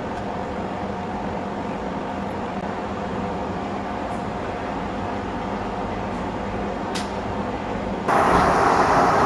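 Air cooler's fan running: a steady rushing noise with a low hum. About eight seconds in it turns suddenly louder and hissier, the cooler's wind blowing straight onto the microphone.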